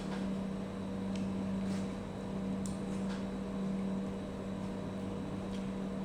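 Steady low machine hum, a constant electrical or motor drone, with a few faint light clicks scattered through it.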